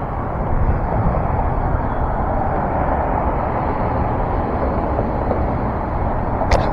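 Steady vehicle noise: an even low rumble with a hiss, and a sharp click near the end.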